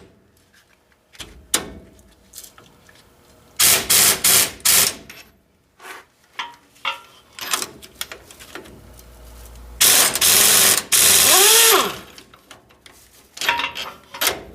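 Hand ratchet wrench clicking in short quick runs while new U-bolt nuts are run down on the leaf spring, with scattered metal clinks. A louder rasping burst comes about ten seconds in.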